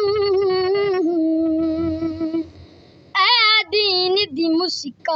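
A boy singing a noha unaccompanied: a long held note that steps down in pitch, a brief pause about two and a half seconds in, then higher sung phrases with a wavering, melismatic line.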